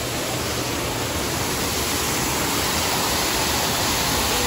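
Artificial rock waterfall pouring into a pool: a steady rushing of water that grows a little louder toward the end.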